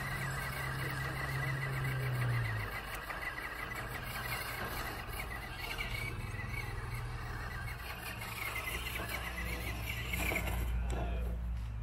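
Electric motor and gears of a scale RC rock crawler whining as it crawls up out of a dirt hole, the pitch wavering as the throttle is worked. A steady low hum drops away a couple of seconds in.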